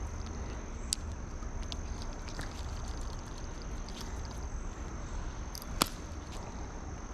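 A steady high insect call over the low rush of a swollen, flowing creek, with a few sharp clicks, the loudest about six seconds in.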